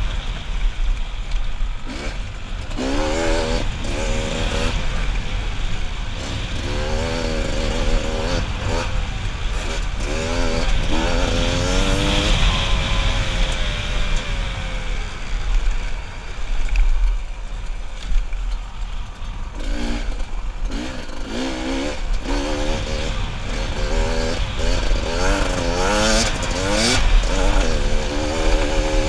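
Enduro dirt bike engine under way, revving up and falling back over and over as the throttle opens and closes and the gears change, with a rough rumble of rushing air and terrain underneath. Around the middle the revs settle lower and steadier for a few seconds, then the revving picks up again.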